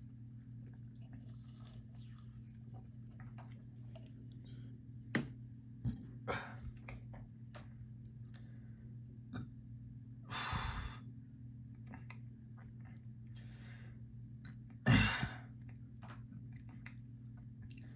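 Mouth sounds of someone tasting sparkling water sipped through a straw: scattered small lip smacks and sips, and two louder breathy sounds about ten and fifteen seconds in, the second the loudest, over a steady low hum.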